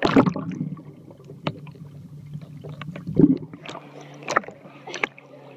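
Water splashing and lapping against a camera held at the surface of a lake while a child swims, loudest right at the start, with sharp splashes and knocks scattered through. A faint steady low hum runs underneath.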